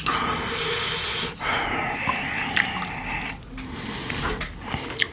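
Close-miked slurping of pork-bone soup: two long, wet slurps, then a few quieter clicks and smacks.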